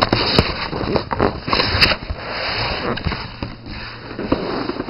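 A cardboard shipping box being pulled open and handled close to the microphone: rustling and scraping of cardboard, with a few sharp snaps in the first two seconds.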